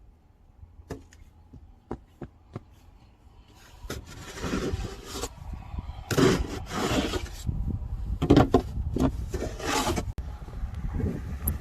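Footsteps crunching through deep fresh snow: a few faint clicks at first, then about four seconds in, louder drawn-out crunching steps, about a second each, with a low wind rumble on the microphone.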